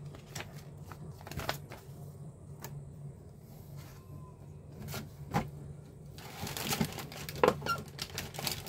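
A plastic model kit's paper instruction booklet and packaging being handled on a table: scattered light taps and clicks, then a denser rustling and crinkling from about six seconds in, over a low steady hum.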